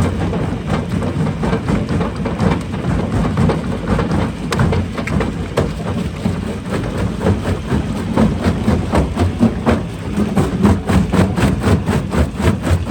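Rock crusher running under load: a heavy, continuous rumble with a dense clatter of rocks knocking and breaking, growing busier in the second half.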